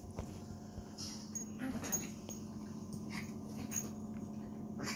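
Small puppy making whimpering play noises and snuffles while tossing and slapping a stuffed teddy bear about on carpet, in short irregular bursts over a steady low hum.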